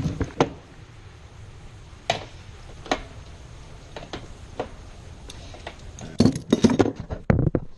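Metal hardware and hand tools clicking and clinking as a flush bolt is worked into the bottom edge of a door: separate light clicks every second or so, then a quick rattling run of clicks about six seconds in.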